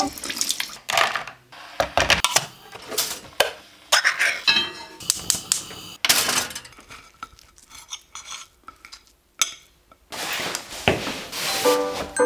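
A run of separate clinks, knocks and clatters of dishes and cutlery being handled, with music starting near the end.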